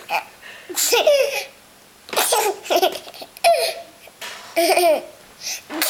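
Baby boy laughing in several short bursts, cracking himself up over his own fake sneezes.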